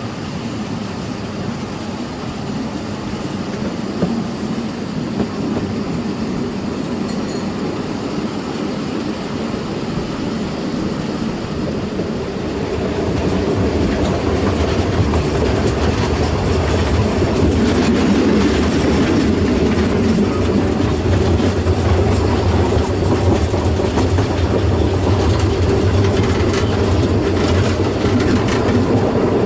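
Narrow-gauge passenger train running along the track, heard from an open carriage window, with the wheels clattering over the rails. It grows louder and heavier about halfway through.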